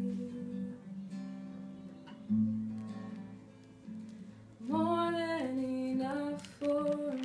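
Acoustic guitar softly strummed, its chords left ringing, with a fresh strum a little over two seconds in. Past halfway a woman sings a few long held notes over it as the song closes.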